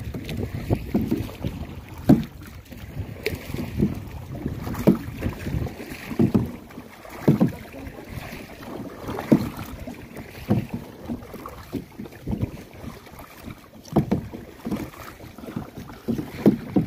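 Kayak paddles dipping and splashing in the water in irregular strokes every second or two, over a low rumble of wind on the microphone.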